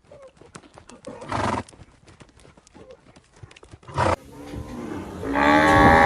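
Horse hooves clip-clopping in a string of sharp clicks, with a short breathy snort about a second in. Near the end a different recording starts with a loud, drawn-out animal call.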